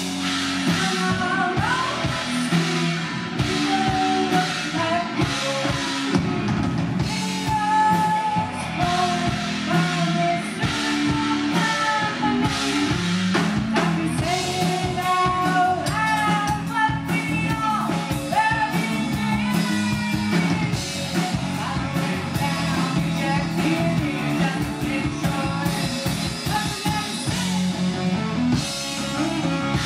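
Live rock band playing: a woman sings lead over electric guitar, electric bass and a drum kit.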